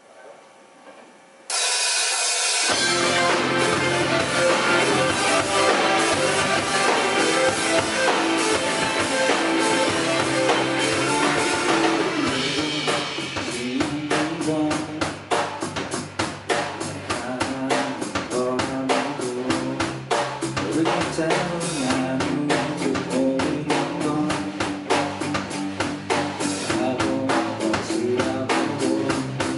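Indie rock band playing live: electric guitars, bass guitar and drum kit. The full band comes in abruptly about a second and a half in, and from about halfway the drums drive a fast, steady beat.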